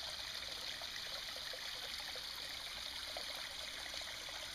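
A small forest stream flowing over rocks: a steady rush of water with many small splashing trickles.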